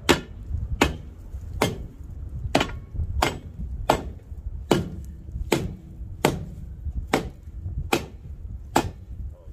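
A long steel bar jabbed repeatedly into hard ground, about a dozen sharp, evenly spaced strikes, a little more than one a second.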